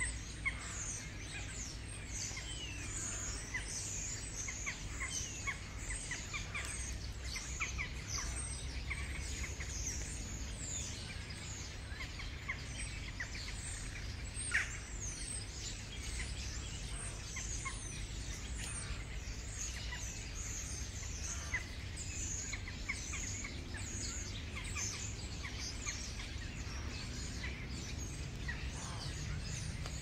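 Waterfall pouring steadily, with many small birds chirping and singing throughout in short falling high notes; one louder note stands out about halfway through.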